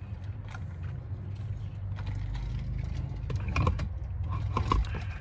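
Steady low hum of a parked car's idling engine, heard from inside the cabin, with scattered small clicks and taps that become more frequent in the second half.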